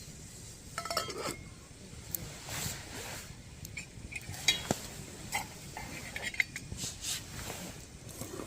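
Metal cookware and utensils clinking and knocking together: a scattered run of light clinks, one ringing briefly about a second in.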